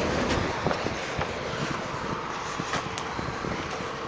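Freight train wagons rolling past over a level crossing, with a steady rumble and irregular wheel clacks over the rail joints. A faint steady tone sits underneath.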